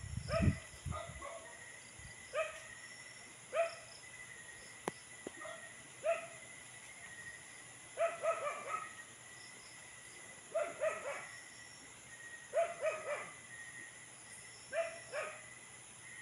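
A dog barking over and over in short barks, clusters of one to four about every two seconds, over a steady high-pitched background drone. A low rumble, likely the phone being handled, comes about half a second in.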